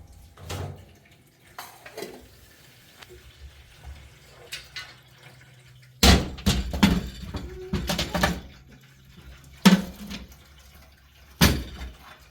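A series of sharp knocks and clatters of hard objects, irregularly spaced, with a cluster a little after halfway, over a steady low hum.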